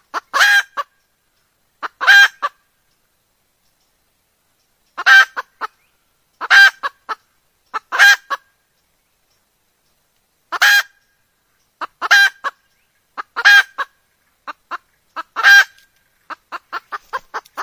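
Red junglefowl hen calling: short cackling calls, one roughly every one and a half seconds, then near the end a quicker run of shorter, fainter notes. It is a lure call, given as the call of a hen ready to mate, used to draw junglefowl cocks in.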